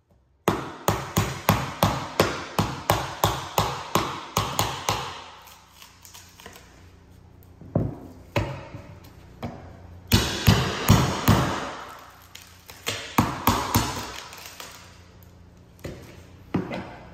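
Hammer blows in quick runs of about three a second, with a couple of short pauses, chipping the cut-out middle section of an engineered hardwood floor board loose.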